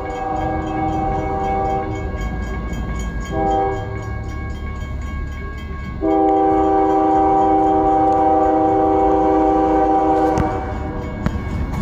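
Diesel locomotive air horn, a multi-note chord, blown by the lead CSX ES44AH. One blast ends about two seconds in, a short blast follows, then a long, louder blast runs from about six seconds to ten. A steady low rumble of the train's engines and wheels sits underneath.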